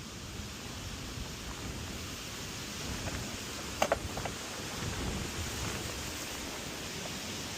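Bora edge-clamp saw guide being handled and set: two sharp metallic clicks with a brief ring about four seconds in, over a steady background hiss.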